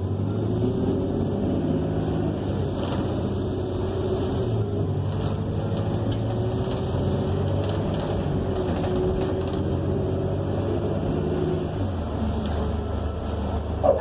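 Interior sound of a New Flyer XN40 transit bus under way: its Cummins Westport L9N natural-gas engine and drivetrain running steadily, the pitch rising and falling a few times as the bus speeds up and slows.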